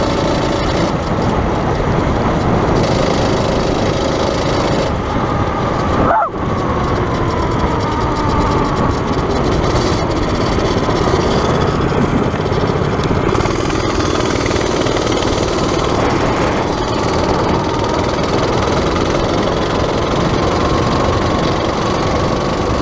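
Predator single-cylinder four-stroke engine in a minibike running under load as the bike rides along, its pitch rising and falling with the throttle. The sound dips sharply for a moment about six seconds in, then climbs again.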